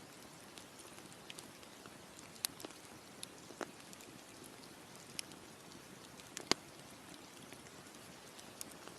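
Campfire crackling: a steady soft hiss with scattered sharp pops of burning wood, the loudest about six and a half seconds in.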